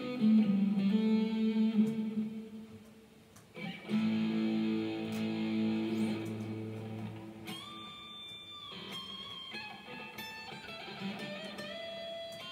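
Electric guitar played through a Bose S1 Pro portable PA speaker: sustained single notes with slides and bends, left to ring. It dips nearly to quiet about three seconds in, then new held notes start.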